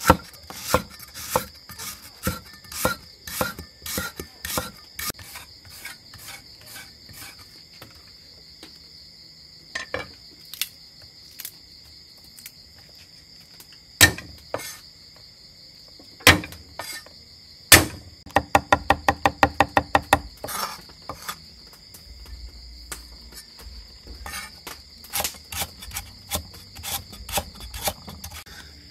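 Cleaver chopping on a thick wooden chopping board: irregular knocks, a few heavy single blows, then a quick run of rapid even chops about two-thirds through, as when mincing garlic. A steady high chirring of night insects runs underneath.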